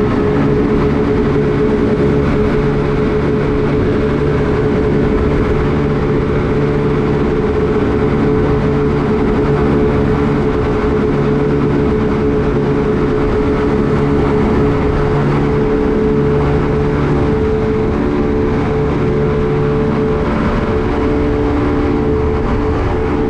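Motorboat engine running steadily at speed, its drone over the rush of water against the hull, with a low tone that swells and fades every second or two.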